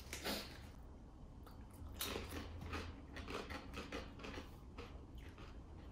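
Soft crinkling and crackling of small plastic snack wrappers, with the crunch of small crackers being shaken out into a hand.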